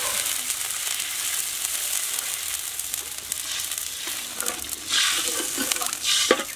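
Hot oil and fried chilies in a wok sizzling hard as water is poured in, the sizzle slowly dying down. Near the end a metal spatula scrapes and stirs in the wok a couple of times.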